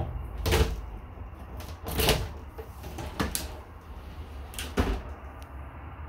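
RV shower door with textured glass panels being opened, knocking and clattering several times. The loudest knocks come about half a second and two seconds in, with another near five seconds.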